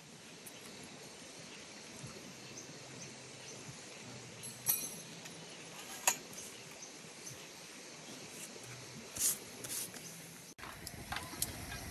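Faint hiss of an outdoor night with a few light clicks and knocks, spaced several seconds apart, from people handling tarp and poles while pitching a shelter.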